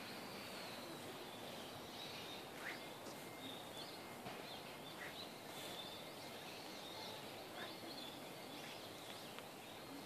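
Faint outdoor ambience: a steady low hiss of background noise with short, high bird chirps every two or three seconds.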